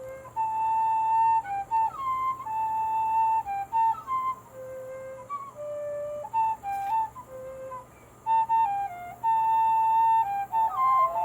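CPVC tin whistle in the key of C, with a handmade mouthpiece and cedar block, playing a melody one note at a time, mostly held notes with quick runs between them. There is a short break about eight seconds in.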